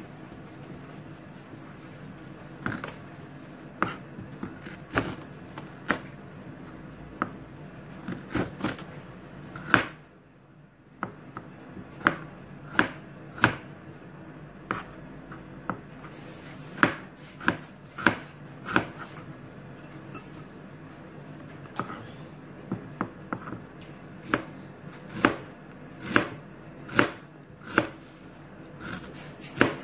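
Kitchen knife slicing fresh ginger on a plastic cutting board: irregular sharp knocks of the blade against the board, pausing briefly about ten seconds in and settling into about one cut a second near the end.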